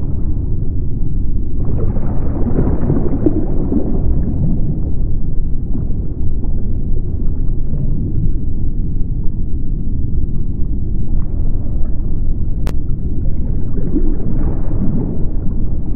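A loud, deep, steady rumble with slow swells, and one sharp click late on.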